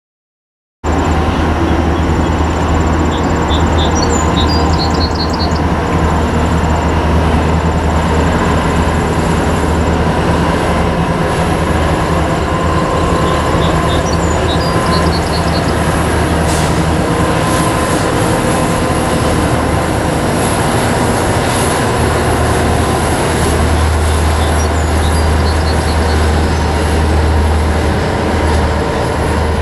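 Norfolk Southern diesel freight locomotives and their train rolling across a stone arch bridge: a steady heavy rumble with a low engine drone that grows stronger in the last few seconds as the locomotives draw near.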